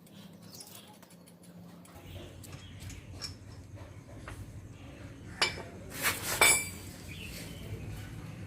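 Metal clinks with a brief ring, one about five and a half seconds in and a quick cluster about a second later, from a steel wheel spanner and lug nuts being handled while a car wheel is taken off.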